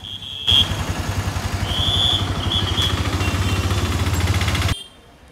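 Bajaj Avenger 160 Street's single-cylinder engine running steadily. It cuts in abruptly about half a second in and cuts off abruptly shortly before the end.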